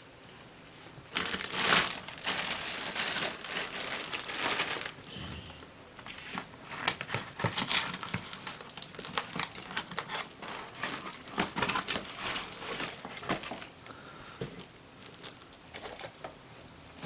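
Plastic and cardboard parcel packaging crinkling and rustling as it is opened by hand, in irregular stretches of many short sharp crackles.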